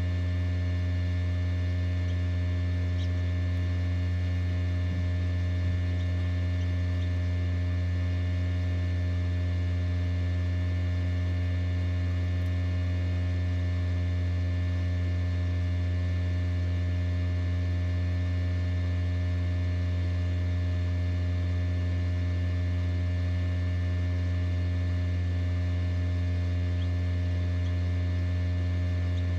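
Steady low electrical hum of an egg incubator running, with a few faint, brief high peeps from newly hatched bobwhite quail chicks.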